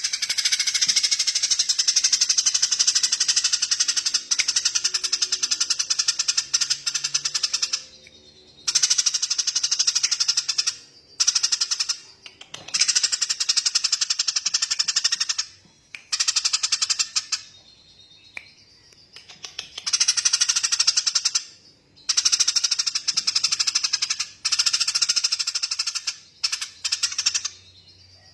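A bird giving rapid, dry, rattling trills in long bursts of one to several seconds, separated by short breaks.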